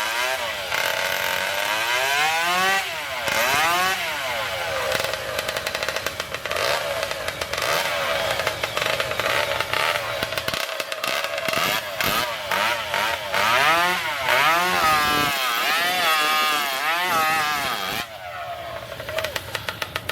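Two-stroke racing chainsaw engines revving, their pitch rising and falling again and again over a steady engine tone. Near the end the revving drops to a quick, even pulsing idle.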